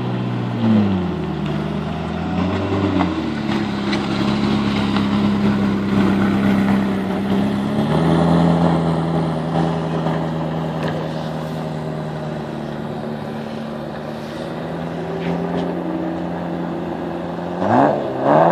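Ferrari F40's twin-turbo V8 at low revs, blipped briefly a couple of times, then running in a steady low drone as it pulls away. The engine is revved twice in quick succession near the end.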